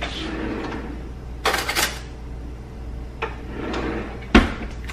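Kitchen drawer pulled open and a metal spoon taken out, with a rattle of cutlery about one and a half seconds in, then a single sharp knock near the end as the drawer is pushed shut.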